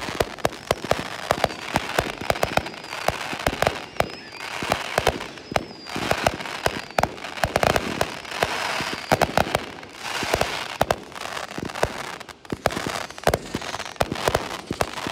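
Fireworks display: many sharp bangs from bursting aerial shells in quick, irregular succession, with swells of crackling between them.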